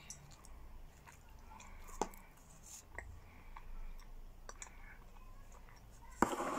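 Close-miked chewing of a bite of pizza, with small wet mouth clicks and two sharper clicks about two and three seconds in. A louder burst of noise starts near the end.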